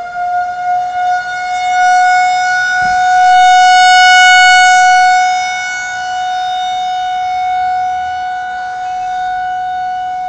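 Civil defense air raid siren sounding a loud steady tone in its monthly test, swelling louder around the middle and then easing back.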